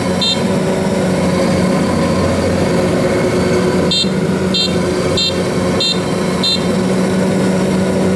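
Kubota DC70 combine harvester's diesel engine running steadily under load, with its electronic warning beeper sounding about every two-thirds of a second, once near the start and then five times from about four seconds in.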